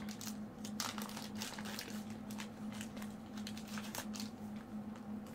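Light, intermittent crinkling and rustling of thin plastic as a trading card is slid into a plastic penny sleeve, over a steady low hum.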